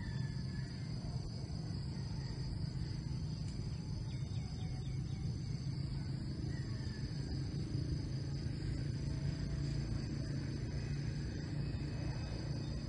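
Steady high-pitched drone of forest insects, over a low steady rumble.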